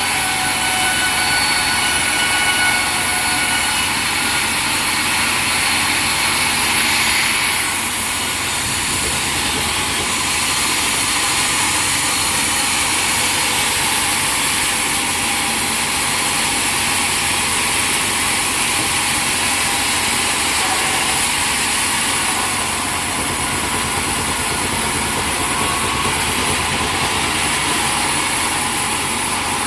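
Sawmill machinery running loudly and steadily, with a harsher, brighter hiss coming in about seven seconds in.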